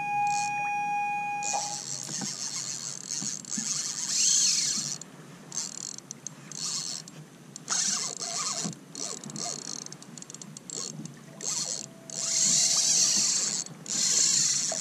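Large spinning reel buzzing in repeated bursts of about a second, a few seconds apart, as a hooked king mackerel runs against the drag. A steady tone sounds for about the first two seconds.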